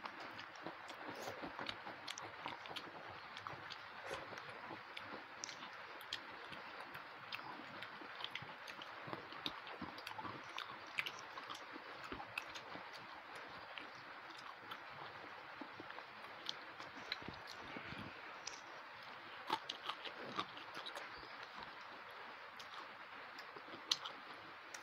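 Close-miked chewing and mouth sounds of people eating rice and fried fish by hand, with many small scattered clicks and smacks over a faint steady hiss.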